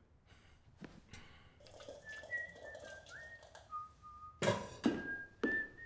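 A man whistling a short tune of held notes that step between pitches, with one quick upward slide. Two sharp clinks cut in about four and a half and five and a half seconds in.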